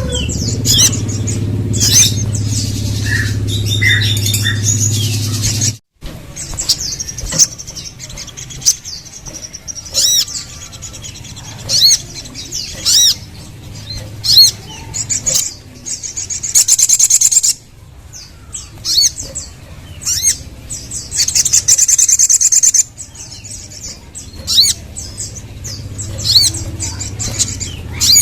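Crimson sunbird (sogon) calling: quick, sharp, high chirps and short twittering phrases, with two longer rapid trills partway through. A steady low hum sits under the first few seconds and cuts off suddenly.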